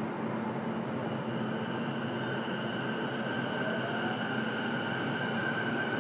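Inside the motor car of a JR East E233-7000 series electric train pulling away after the doors close: a steady inverter whine comes in about a second in over the rumble of the running gear, and a rising motor tone follows as the train gathers speed.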